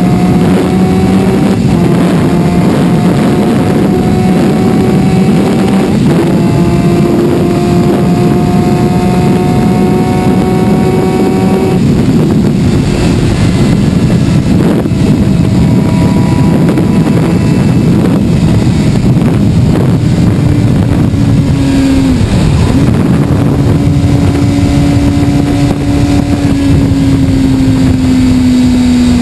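Suzuki sport motorcycle's engine running at highway speed, with heavy wind rushing over the bike-mounted camera. The engine note climbs slowly with two brief drops early on like gear changes, is buried in wind noise midway, then settles and slowly falls near the end.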